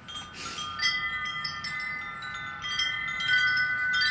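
Wind chimes ringing, many overlapping tones struck again and again, louder from about a second in.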